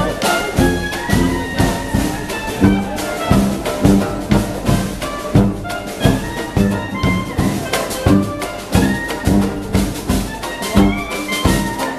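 Dixieland street band playing jazz live as it marches: sousaphone bass and brass melody over a steady beat.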